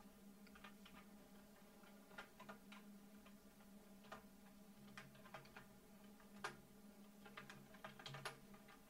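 Faint computer-keyboard key clicks, a dozen or so single presses spaced irregularly over several seconds, over a faint steady hum.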